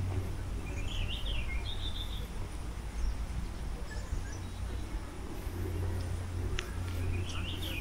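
A songbird singing a short, quick, warbling phrase about a second in and repeating it near the end, over a steady low rumble of outdoor background.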